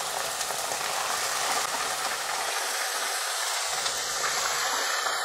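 Raw minced mutton (keema) sizzling steadily in hot oil with fried onions as it is stirred with a wooden spatula in an open steel pressure cooker; the raw mince has just gone into the hot oil to be browned.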